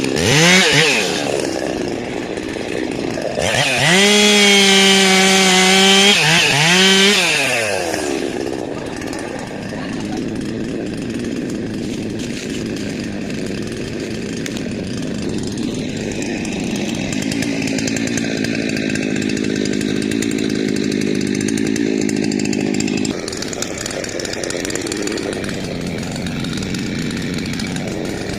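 Two-stroke chainsaw revving at full throttle, then running lower and rougher, bogged down under load as it cuts into the base of a rain tree (trembesi) trunk.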